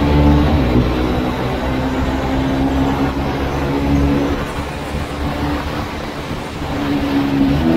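Jawa motorcycle's engine running at a steady cruise, heard from the rider's seat over a deep rumble of wind and road. The engine note eases off slightly around the middle and picks up again near the end.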